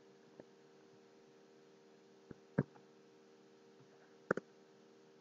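A few isolated clicks of a computer mouse and keyboard, including a quick double click near the end, over a faint steady hum.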